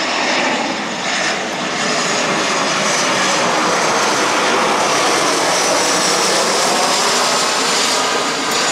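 Airbus A320 jet airliner passing low overhead on landing approach: a loud, steady jet-engine rush with a high whine that drops slightly in pitch as the aircraft goes past.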